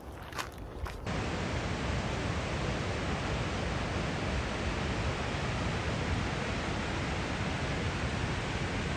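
Steady rushing roar of the Animas River below the trail, cutting in abruptly about a second in after a few footsteps on the trail.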